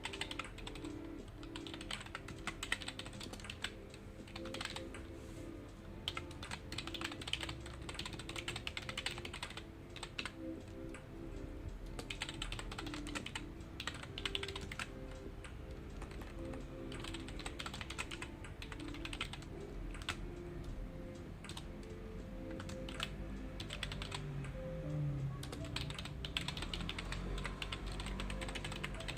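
Computer keyboard typing in quick runs of keystrokes with short pauses between them, over background music.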